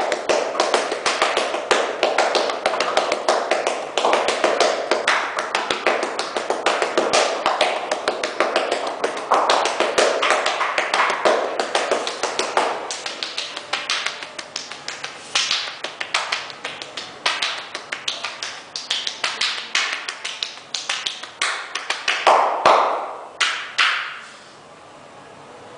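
Percussive massage (tapotement): the masseur's hands slap and pound the client's body in a rapid, drum-like rhythm. A few louder strokes come near the end, and then the strikes stop suddenly.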